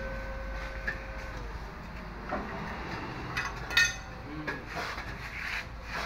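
Scattered metal clinks and knocks from tools and parts being handled, with one sharp, ringing metallic clank about four seconds in. A faint steady tone stops about a second and a half in.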